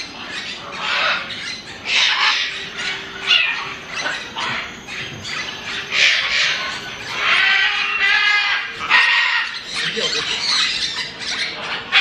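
Parrots squawking in an aviary, a string of harsh calls one after another.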